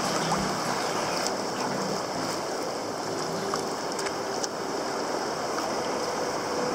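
Choppy sea water rushing and splashing around a moving sea kayak, heard close up from the boat's deck, with a few small ticks.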